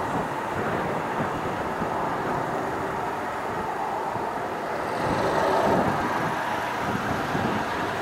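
Distant jet engine noise from a Boeing 767-300 rolling slowly on the runway after landing, swelling briefly about five seconds in as the jet begins to turn. Strong gusty wind buffets the microphone.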